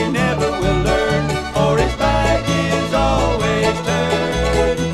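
Recorded bluegrass band playing: fiddle and banjo picking over guitar and a stepping bass line.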